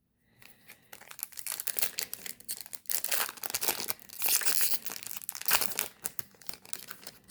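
Wrapper of a Topps baseball card pack crinkling and tearing as it is ripped open by hand, a dense run of crackles with no pause.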